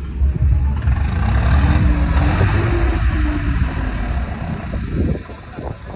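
Diesel tractor engine running close by with a steady low rumble; about two seconds in it gets louder and its pitch rises and then falls, as in a brief rev.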